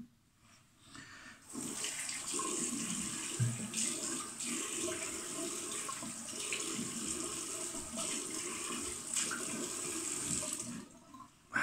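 Water running from a bathroom tap into a sink, with uneven splashing as the face is rinsed after a shave. The water starts about a second and a half in and stops shortly before the end.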